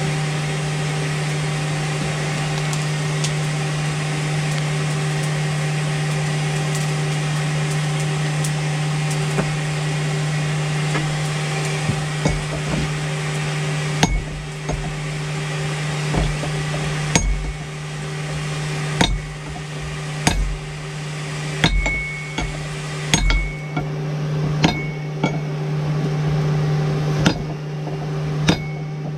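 Hammer blows on hot steel at the anvil while forging a wrench into a tomahawk head, starting about halfway through and coming roughly one a second, each with a short ringing ping, over a steady low machine hum.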